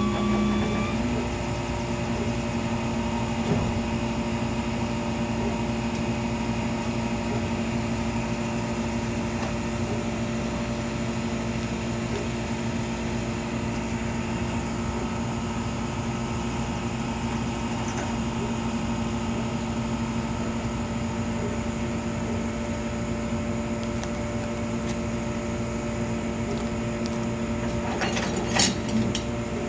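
A motor or engine running steadily at one even speed, a constant drone with several fixed tones. A few sharp clicks or knocks come near the end.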